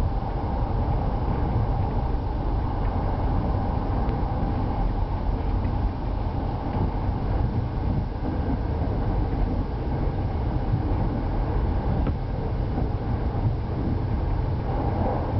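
KTR001 series diesel train running steadily along the track, heard from inside the cab: an even low rumble of engine and wheels on rail.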